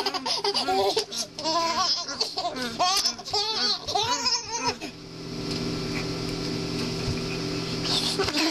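Young people laughing and giggling in short high bursts for about five seconds, then a steady hiss and low hum with little voice.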